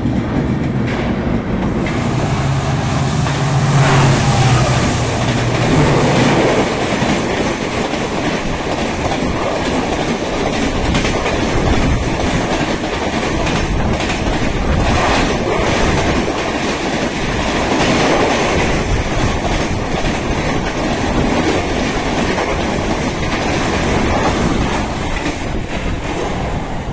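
Red-and-grey LHB passenger coaches running past close by at speed, a steady rumble with the clickety-clack of wheels over rail joints. A low hum sounds for a few seconds near the start.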